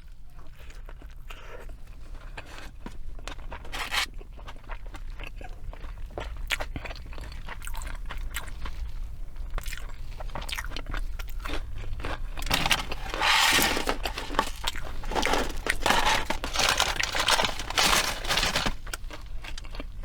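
Close-miked chewing of crispy fried fast food, with many sharp crunches that get louder and denser in the second half.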